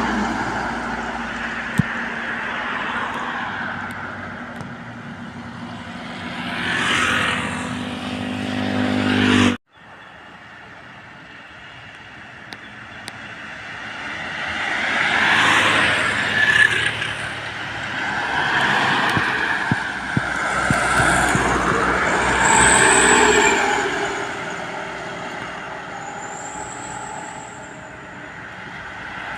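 Heavy trucks passing by on a highway. A truck engine builds to a peak and then cuts off abruptly about ten seconds in. After that, further vehicles swell past with engine and tyre noise, with brief high squeal-like tones near the end.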